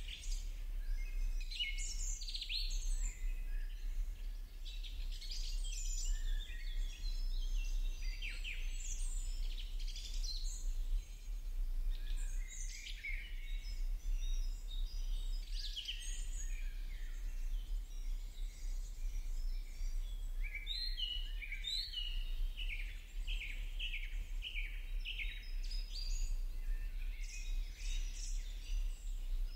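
Birds chirping and singing, with short high calls scattered throughout and a run of quickly repeated notes about two-thirds of the way in, over a steady low hum.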